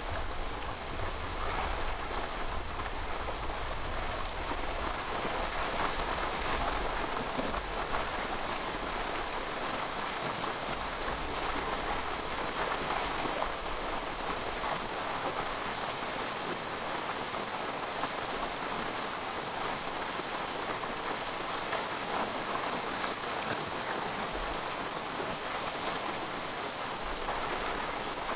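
Rain falling steadily, a dense even patter, with a low rumble through roughly the first third.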